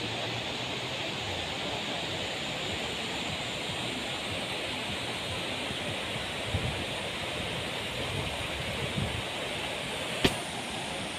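Steady rushing of water, an even hiss with no let-up, and a single sharp click about ten seconds in.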